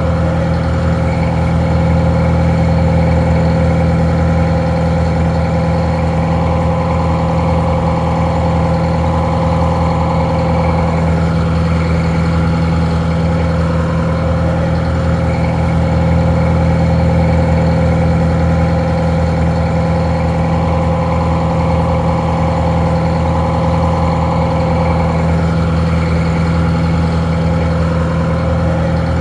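Detroit Diesel 4-71 two-stroke diesel engine idling steadily; the sound is a little muffled.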